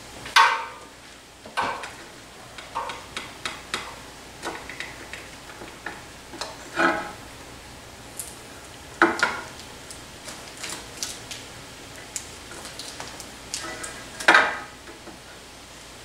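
Irregular clicks, knocks and rustles of electrical cords and small hardware being handled and hung, with three louder knocks (about half a second in, around nine seconds and around fourteen seconds) over a steady faint hiss.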